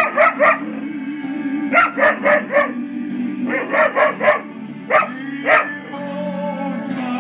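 Dog barking in quick runs of three or four sharp barks, then two single barks near the end, over steady background music.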